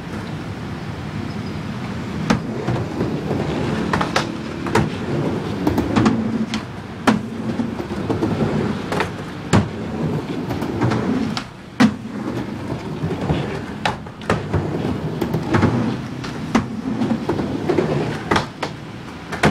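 Skateboard riding a mini ramp: the wheels' rolling rumble swells and fades as the board goes back and forth, broken by a dozen or more sharp clacks of the board striking the ramp and its coping.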